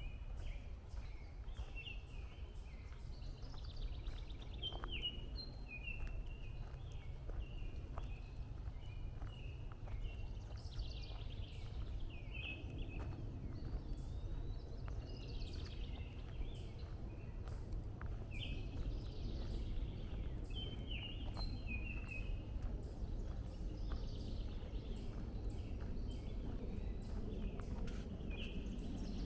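Footsteps on a trail at a steady walking pace, about two a second, with a songbird repeating a short warbled phrase every few seconds over a steady low rumble.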